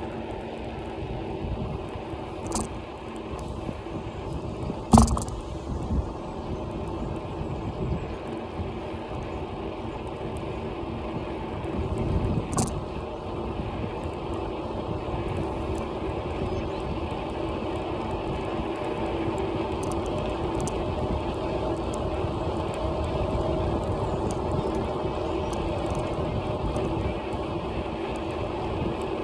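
Bicycle rolling along a tarmac lane: steady tyre and road rumble, with a few sharp knocks as the bike goes over bumps, the loudest about five seconds in.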